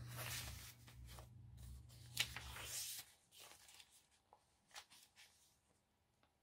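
Paper and card pages of a handmade junk journal rustling and sliding as they are handled and turned, with a sharp tap about two seconds in. After about three seconds only faint, scattered rustles and small taps remain.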